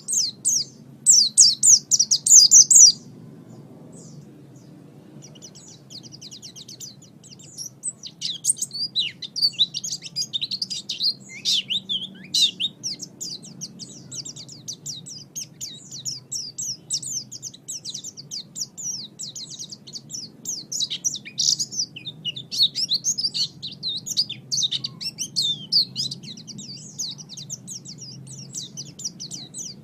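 Small songbird singing a fast, dense run of high chirps and trills. There is a loud burst near the start, a short lull, then nearly continuous chattering song. A faint low hum runs underneath.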